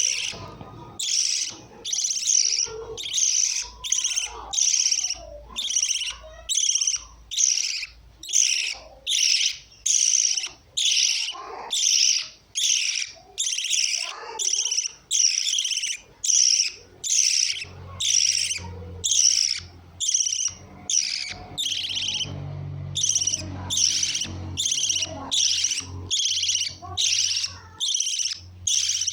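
Lovebirds calling with short, shrill chirps, repeated steadily at about one and a half a second.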